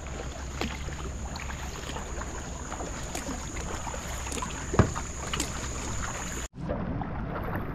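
Water splashing and lapping around a kayak under way, with wind on the microphone. A sharper splash or knock comes near five seconds in, and the sound drops out briefly about six and a half seconds in.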